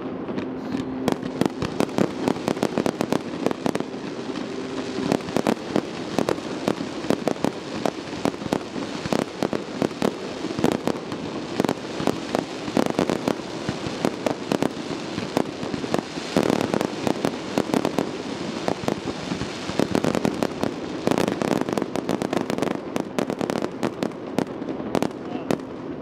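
Fireworks display going off nonstop: a dense run of bangs and crackles, several a second, with louder clusters about two-thirds of the way through and again a few seconds later.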